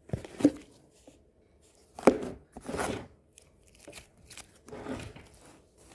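Hands squishing and stretching freshly activated slime: irregular sticky squelches and tearing sounds, the loudest about two seconds in.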